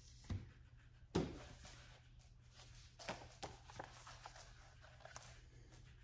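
Books being handled: a hardcover set down on a stack with a sharp knock about a second in, then faint rustling and light knocks as the next book is picked up.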